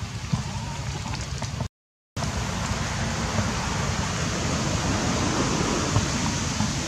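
Steady rain falling on forest foliage, a dense even patter with a few separate drip ticks. The sound cuts out completely for about half a second near two seconds in, then carries on.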